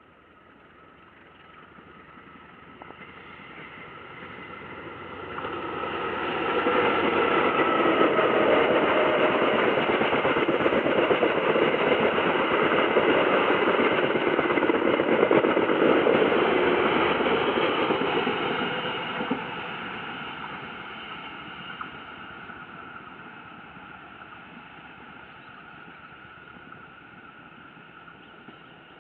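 Passenger train running past on the track. Its sound builds over about seven seconds, stays loud for about ten seconds as the coaches go by, then fades away as it recedes.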